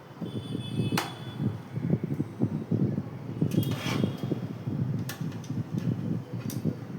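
Irregular handling and rubbing noise with a few sharp clicks about a second in and near the end, and a short rustle just past the middle.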